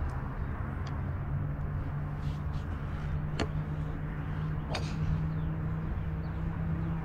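A motor runs steadily in the background as a low drone with a held hum. Three short, sharp cracks come about one, three and a half and five seconds in.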